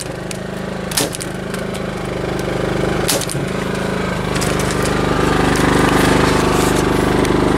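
Portable generator engine running steadily in eco mode, with a Novus electric staple gun firing staples into the wooden frame, two sharp shots about a second and about three seconds in.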